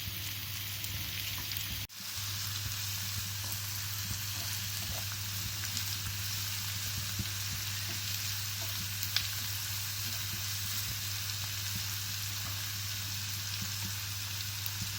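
Onion and tomato frying in hot ghee in a pan, a steady sizzle with a few faint clicks. The sound breaks off for a moment about two seconds in.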